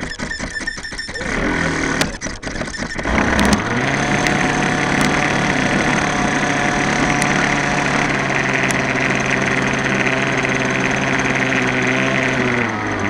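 Glow-fuel engine of an X-Cell 60 model helicopter being cranked, with rapid ticking and uneven sputtering, then catching about three and a half seconds in and idling with a steady, unchanging hum.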